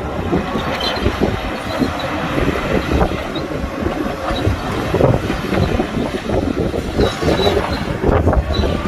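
Crawler bulldozer working: a diesel engine running under dense, irregular clanking of the steel tracks, with brief high squeaks now and then.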